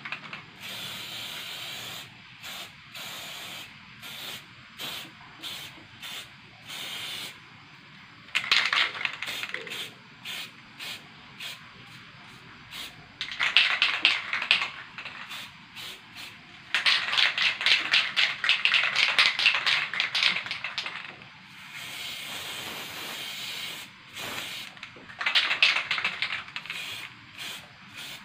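Aerosol spray-paint can hissing in repeated bursts, some short puffs and some longer blasts, the longest lasting about four seconds.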